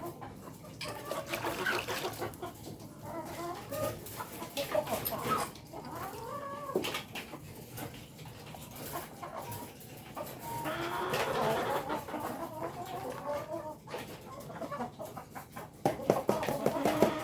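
Ayam kampung (Indonesian village chickens) in a coop, making short repeated calls, busiest about two-thirds of the way through, with scattered clicks and knocks.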